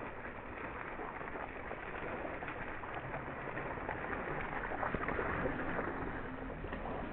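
Cyclocross bike tyres splashing through a muddy puddle as riders ride through it, loudest about five seconds in, with birds calling in the background.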